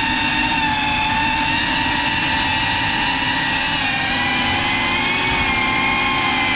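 Small FPV quadcopter's brushless motors whining steadily at near-constant throttle while it hovers. The pitch dips slightly about four seconds in.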